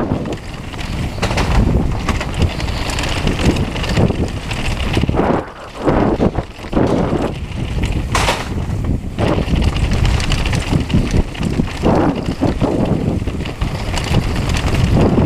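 A mountain bike descending a dirt downhill trail at speed: wind rushing over the camera microphone, tyre noise and chain and frame rattle, with a couple of brief drops in loudness about a third of the way in.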